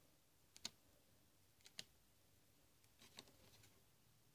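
Faint clicks, about one a second, as the buttons of a remote control's rubber keypad are pressed one after another to test them.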